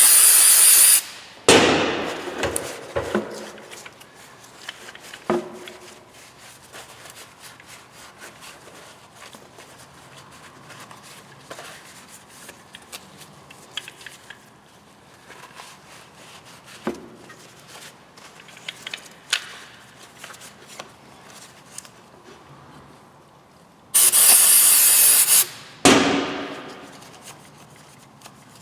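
Aerosol cleaner spraying onto a dirty throttle body in loud hissing bursts: a short pair at the start and a longer pair near the end. Light clicks and knocks of the part being handled come in between.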